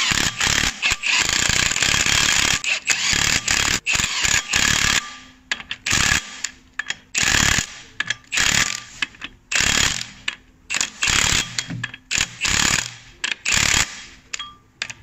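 Impact wrench running in the flywheel bolts of a BMW E36: one long run of about five seconds, then a string of short bursts as each bolt is snugged down in turn.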